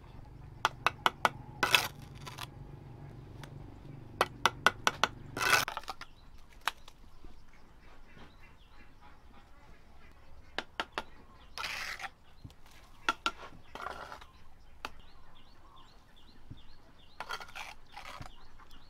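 Steel bricklaying trowel tapping bricks down into wet mortar and scraping mortar. It comes as runs of sharp clinks, five or six in quick succession about a second in and again around four to five seconds in, then scattered taps and scrapes later.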